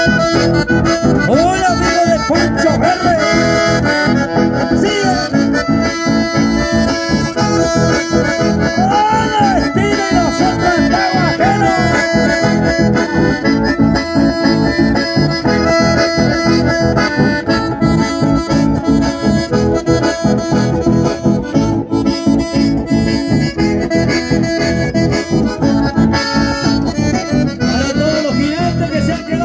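Live chamamé led by accordion with guitar accompaniment, played through a PA at a steady dance rhythm.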